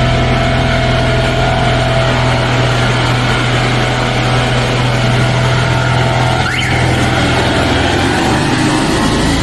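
Van-mounted high-pressure sewer jetter's 40-horsepower twin-cylinder engine running steadily with a constant low hum, its exhaust fitted with a catalytic converter and an end muffler to cut noise and fumes.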